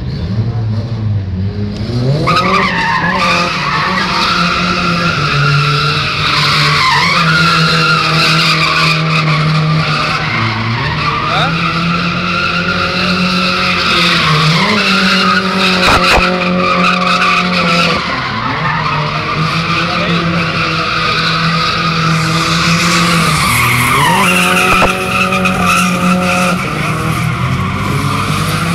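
A Nissan Silvia drift car's engine revving hard and held high while its rear tyres screech in a long slide. The revs climb about two seconds in, then drop briefly and pick up again several times as the car changes direction.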